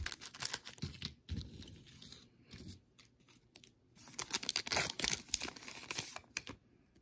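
Trading-card pack wrapper being torn open and crinkled, in two spells of sharp crackling with a short pause between.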